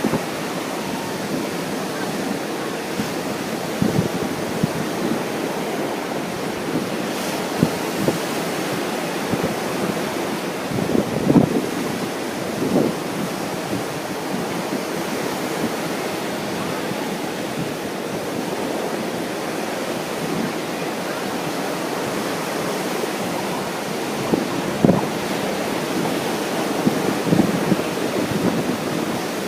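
Ocean surf washing in with wind buffeting the microphone: a steady rushing, broken by a few short louder gusts.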